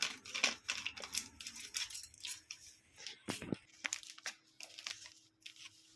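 Spatula scraping and stirring in a pan as ground masala paste cooks in mustard oil: an irregular run of quick scrapes and clicks.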